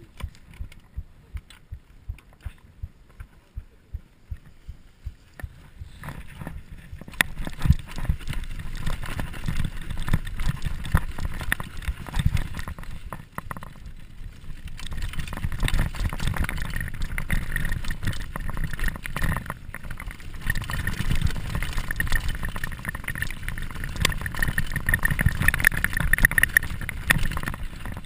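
Mountain bike ridden down a rough dirt trail: tyres rumbling over the ground and the bike rattling and knocking over bumps. For the first several seconds there is only a quieter, regular clicking, about two to three clicks a second, before the riding noise takes over.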